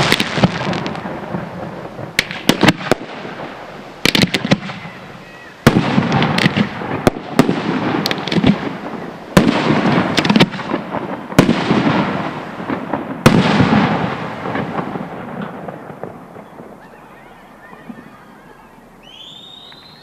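Aerial firework shells bursting in quick succession: sharp bangs every one to two seconds, each followed by dense crackling and echo. The barrage dies away about three quarters of the way through, leaving only a faint rumble.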